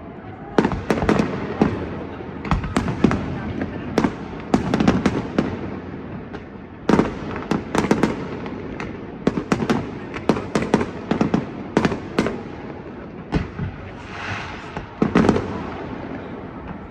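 Aerial fireworks going off in an irregular barrage: many sharp bangs, often several in quick succession, each ringing out with a rolling echo.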